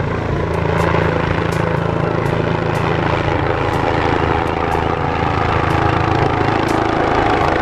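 Helicopter flying low overhead, its engine and rotor running with a steady, even sound.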